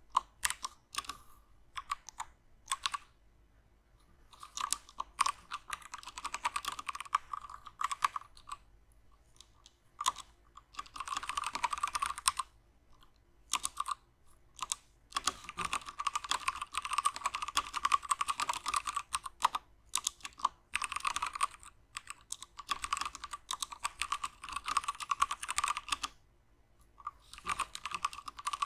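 Typing on a Womier K66 60% mechanical keyboard with Gateron Brown switches: rapid runs of keystroke clacks in bursts, broken by short pauses.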